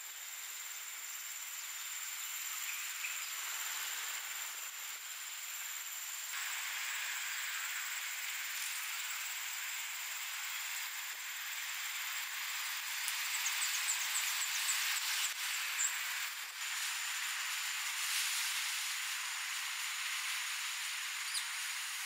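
Steady high-pitched chorus of tropical insects, with one thin steady tone running above the general buzz; it grows louder about a quarter of the way through, and a short run of quick chirps comes in about two-thirds of the way through.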